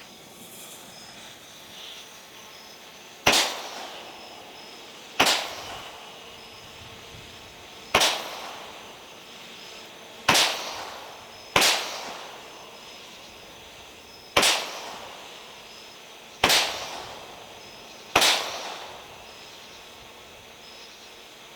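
Shelton's Big Bull fireworks cake firing its shots one at a time: eight sharp bangs about two seconds apart, each trailing off over about a second.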